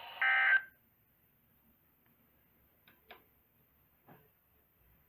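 A short burst of Emergency Alert System (SAME) digital data tones from a NOAA Weather Radio, the end-of-message code that closes the flood warning; the radio audio then cuts off, leaving near silence with a few faint ticks.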